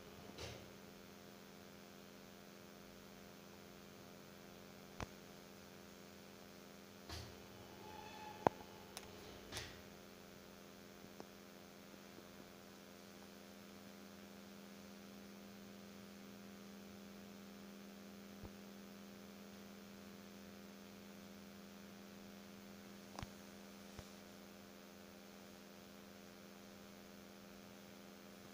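Steady electrical mains hum, with a few faint clicks and taps scattered through it and a brief higher tone about eight seconds in.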